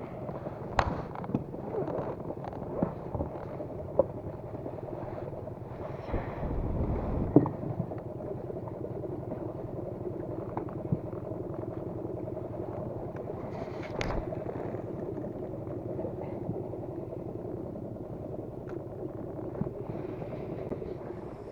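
A motor runs steadily with an even hum, and scattered clicks and knocks sound over it.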